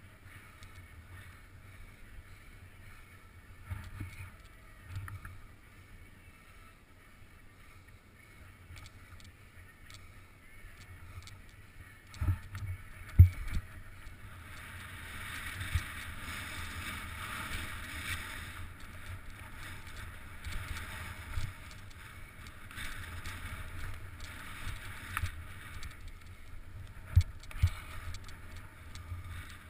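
Skis sliding and scraping over tracked powder snow, heard from the skier's own mounted camera. The hiss grows louder from about halfway through, and a few heavy thumps come as the skis hit bumps, twice close together near the middle and twice near the end.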